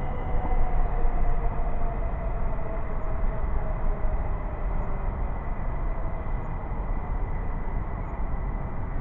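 A train running on the station tracks: a steady low rumble with a whine that slowly falls in pitch over the first few seconds.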